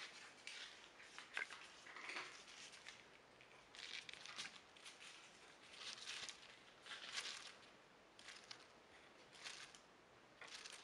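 Near silence broken by faint soft rustles, roughly one a second.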